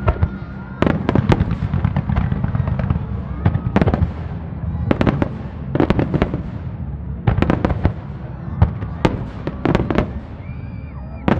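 Starmine fireworks display: rapid clusters of sharp aerial shell bursts and reports, one salvo after another every second or two, over a continuous low rumble of launches and echoes.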